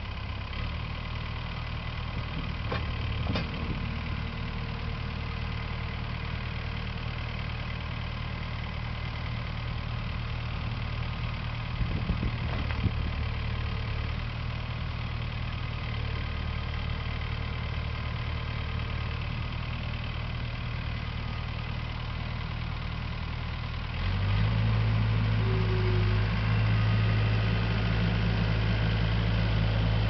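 Engine of a 1997 Scattrak 1800CX skid steer running steadily, with a few short clunks along the way. About 24 seconds in, it gets louder and a little higher.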